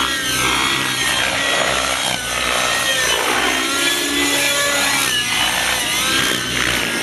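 Radio-controlled model helicopter flying aerobatic manoeuvres: its motor gives a buzzing whine that sweeps up and down in pitch again and again as it speeds up, slows and passes.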